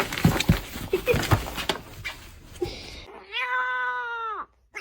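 Rustling and knocking for about three seconds, then a cat gives one long meow that drops in pitch at the end.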